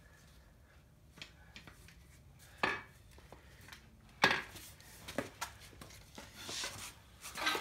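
Scattered metal clinks and knocks of connecting rods, pistons and tools being handled in a diesel engine teardown: a few separate strikes, the loudest about four seconds in, with a brief scrape near the end.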